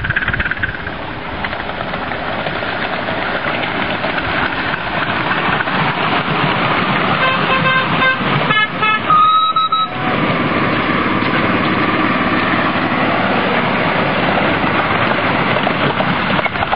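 Miniature railway passenger train running along the track with a steady running noise. About seven seconds in, its horn gives a quick series of short toots, then one longer toot.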